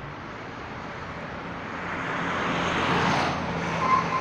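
Road traffic passing close: the engine and tyre noise swells as a car and then a small truck go by, loudest about three seconds in. A brief high tone sounds near the end.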